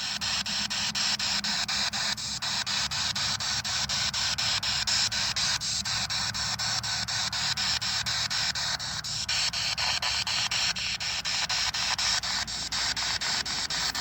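Spirit box sweeping through radio stations: a steady hiss of static chopped by quick, regular clicks several times a second.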